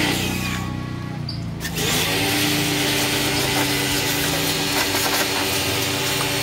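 Pressure washer running, its motor humming steadily under the hiss of the high-pressure water jet striking metal. The spray cuts out about half a second in and comes back on just before two seconds.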